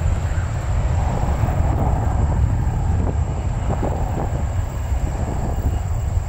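Deep, steady rumble of jet airliner engines, the sound sitting mostly low.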